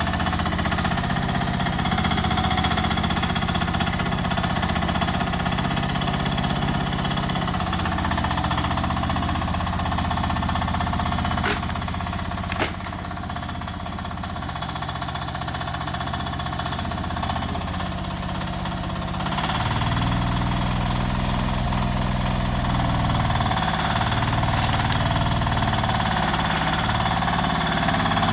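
Rippa R10 mini excavator's engine running steadily while digging, its note shifting with the load. Two sharp knocks come about twelve seconds in, the engine runs quieter for a few seconds, then picks up louder again about two-thirds of the way through.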